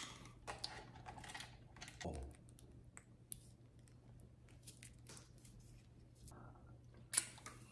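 Faint scattered clicks, taps and rustles of handling food and a torn ketchup packet being squeezed onto a slider, with a short, louder rustle near the end.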